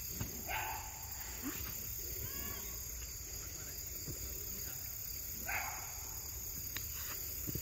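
Steady, high-pitched chirring of insects in the grass, with a couple of brief rustles, one about half a second in and one about five and a half seconds in.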